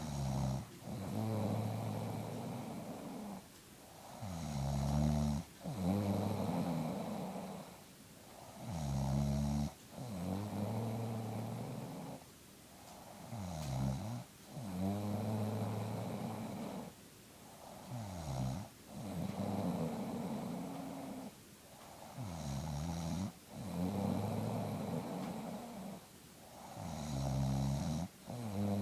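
An elderly woman snoring in sleep: a deep, pitched snore on each breath in, followed by a breathy breath out, repeating steadily about every four seconds.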